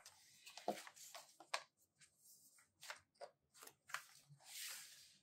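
Faint handling of a fold-out cardboard Blu-ray digipak: panels being turned and unfolded by hand, with a string of soft taps and paper rustles and a longer sliding rustle about four seconds in.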